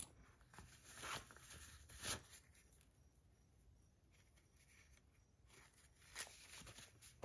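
Faint handling noises from fidget spinner parts being put away and sorted: soft scrapes and rustles about a second in, two seconds in and near the end, with near silence between.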